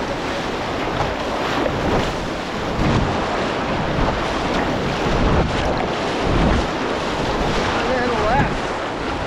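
Rushing whitewater of a river around a canoe, a dense steady wash, with wind buffeting the microphone in gusts.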